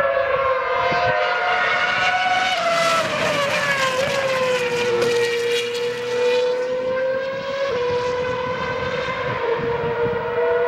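Formula One car's 2.4-litre V8 engine running at high revs, a loud high-pitched whine. Its pitch falls over a couple of seconds as the car goes by, then holds fairly steady with small jumps.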